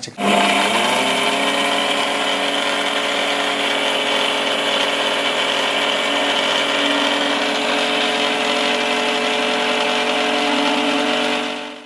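Indian mixer grinder (mixie) motor spinning up and running steadily, grinding dry-roasted coconut and spices in its stainless steel jar to a paste. The whine rises in pitch over the first second, holds steady, then stops near the end.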